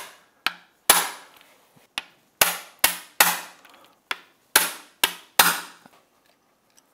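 Hammer blows on a hand impact driver fitted with a Phillips bit: about ten sharp metallic strikes in uneven groups, each with a short ring. They break loose Phillips screws on the outboard's powerhead without stripping the heads.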